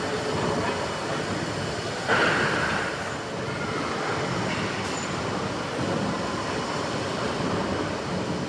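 Worthington-Simpson triple-expansion steam pumping engine running in steam: a steady mechanical running noise of its moving parts, with one sharper, louder burst about two seconds in.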